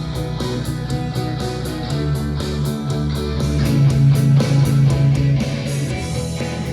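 Rock instrumental with electric guitar and a steady drum beat, played through a restored Pioneer SX-737 stereo receiver.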